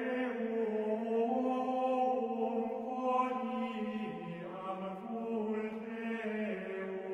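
Voices singing a slow, steady chant in long held notes that move up and down in small steps.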